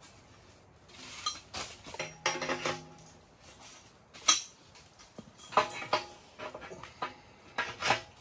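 Sheet-steel box wood stove clanking and ringing as it is handled and stood up on its legs: a string of irregular metal knocks and scrapes, with one sharp click about four seconds in.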